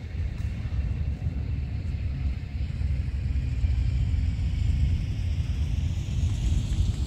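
Wind buffeting the microphone: a steady, unsettled low rumble that grows a little louder after about two seconds, with a faint rising whine in the background.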